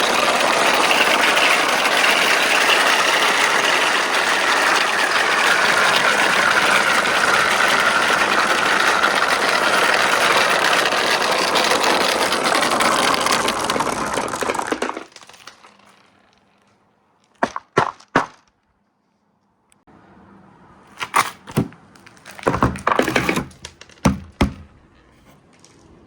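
Many marbles rolling together down a multi-tier marble-run slope, a loud continuous rattling rumble for about fifteen seconds that fades out as they reach the end. Later come a few sharp clicks and clacks of marbles knocking together.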